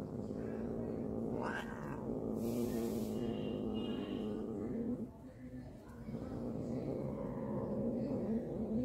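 Domestic tabby cat giving a long, low, drawn-out growling yowl, a warning during a standoff with another cat, with a short hiss about two and a half seconds in; the yowl breaks off about five seconds in and starts again.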